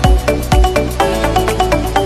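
Background electronic music with a steady kick-drum beat; the drums drop out about a second in, leaving a held bass note and a repeating melody.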